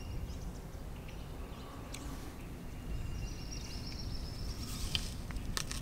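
Open-air river ambience: a steady low rumble of wind and water, with faint thin bird calls and a few short clicks near the end.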